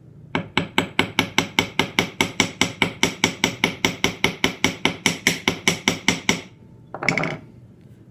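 A small hammer striking 18-gauge nickel silver wire on a steel bench plate, a fast steady run of about thirty ringing metallic taps, roughly five a second, flattening the wire's end. A brief clatter follows near the end.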